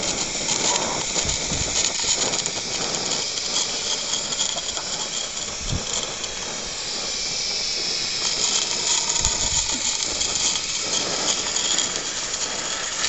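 Garden-scale model steam locomotive running on track while pushing a test wagon chassis: a steady hiss with a few short clicks along the way.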